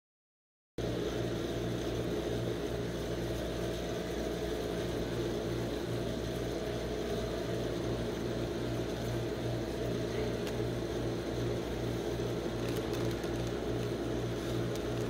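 Steady hum of a rolled-ice-cream machine's refrigeration unit, its compressor and fan running to keep the steel cold plate frozen. It starts abruptly just under a second in.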